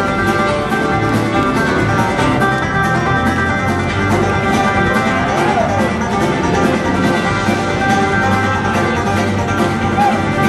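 Live bluegrass band playing at full tilt, banjo and guitar picking over a steady beat.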